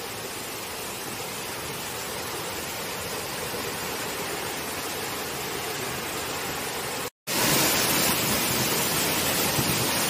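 Waterfall rushing: a steady, even noise of falling water. It drops out for an instant about seven seconds in and comes back a little louder.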